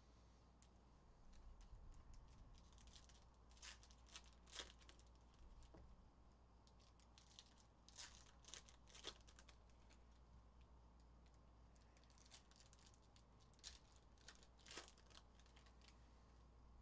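Foil trading-card pack wrappers being torn open and crinkled as the cards are pulled out, in faint short crackles every few seconds.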